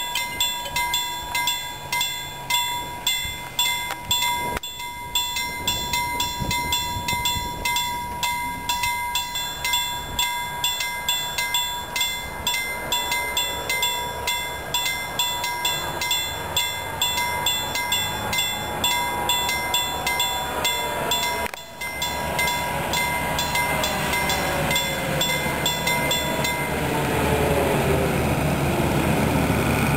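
Level crossing warning bell dinging in a steady, even rhythm, stopping near the end. As it stops, the engine of an Åkerman wheeled rail excavator grows louder as the machine comes across the crossing.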